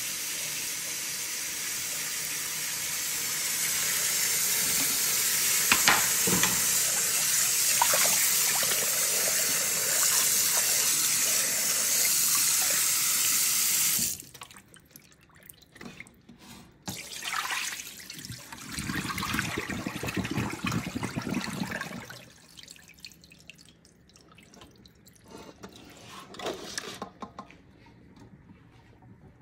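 Kitchen tap running in a steady stream into a stainless steel bowl of whole tilapia, water splashing over the fish. The tap shuts off about halfway through, and quieter scattered splashes and knocks follow as the wet fish are moved about in the bowl.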